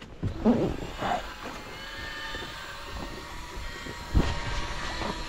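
Small boat's four-stroke outboard motor running steadily, a low rumble with a thin steady whine above it. Sharp knocks about half a second in, about a second in and just after four seconds in stand out above it.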